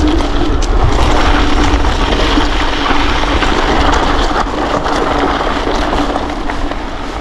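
Mountain bike rolling fast over a dry, stony track: wind rushes over the microphone and the tyres and bike rattle over loose stones with a steady run of small clicks.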